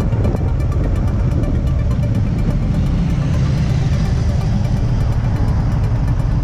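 Riding noise from a Can-Am Spyder RTS three-wheeler: a steady, loud low rumble of wind on the mounted camera's microphone over the running engine as it slows behind a stopped motorcycle.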